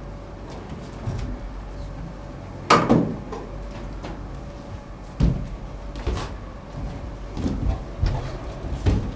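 Scattered knocks and thumps of a stage scene change as a metal folding chair is carried off and performers move onto the stage. The loudest knock comes about three seconds in, with several softer thumps after it, over a low steady hum.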